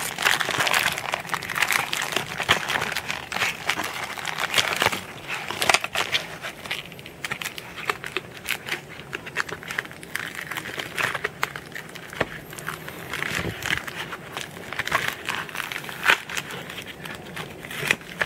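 Clear plastic packing wrap crinkling and crackling as hands rummage through it in a cardboard box, with many irregular small clicks and rustles, louder in the first few seconds.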